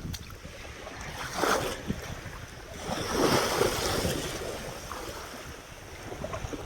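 Ocean surf washing in, swelling briefly about a second and a half in and again more broadly around three seconds in, with wind rumbling on the microphone.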